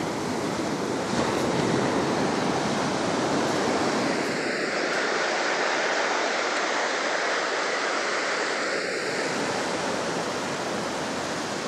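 Ocean surf washing up a flat sand beach on an incoming tide: a steady rush of breaking waves and shallow wash.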